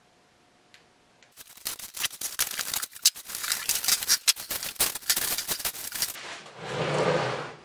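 After about a second of near silence, plastic wrapping crinkles and cardboard rustles densely as a food dehydrator is unpacked from its shipping box. Near the end the crackling gives way to a smoother swell of sliding noise.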